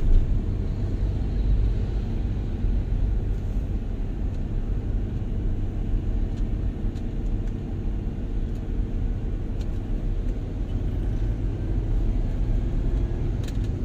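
Steady low rumble of a vehicle driving along a busy road: engine and road noise, even throughout.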